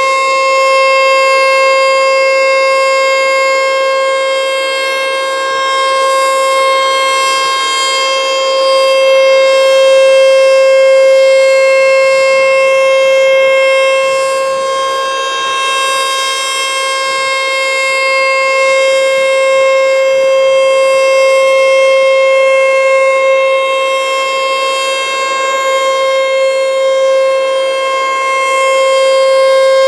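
American Signal T-121 outdoor warning siren sounding a steady alert tone on one unchanging pitch. Its loudness swells and eases slowly as it sounds.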